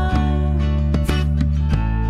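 Music without singing: strummed acoustic guitar chords over steady held tones, the chord changing near the end.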